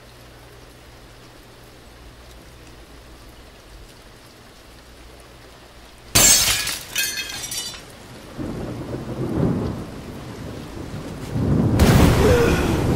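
Thunderstorm: a steady hiss of rain, then a sudden loud thunderclap about six seconds in that crackles for a second or so and rolls into a low rumble, with a second loud clap and rumble near the end.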